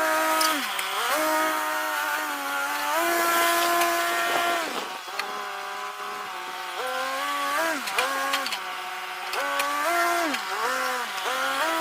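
Skid steer engine running under hydraulic load, its pitch repeatedly rising, holding, and dropping as the machine works.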